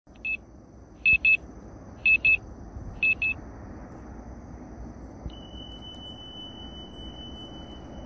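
Electronic beeps: a single short beep, then three quick double beeps about a second apart. A couple of seconds later comes one long, steady high beep that keeps sounding.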